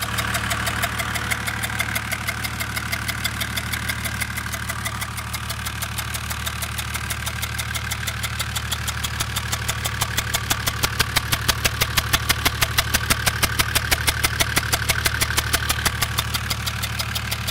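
Mercedes OM606 inline-six diesel running with a rhythmic 'zup zup zup' tapping, about seven a second, which grows louder for a few seconds past the middle. The noise comes from the cylinder 3 intake valve, which the owner hopes is a stuck hydraulic lifter.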